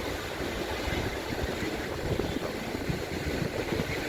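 Strong sea wind buffeting the microphone in uneven low rumbles over a steady rush of wind and surf.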